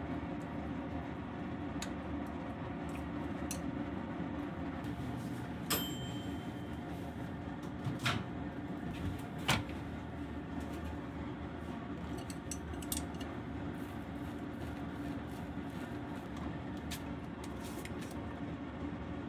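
A few clinks and knocks as a ceramic bowl, a small dish and chopsticks are handled and set down on a plastic cutting board, one clink ringing briefly. A steady low hum lies under them.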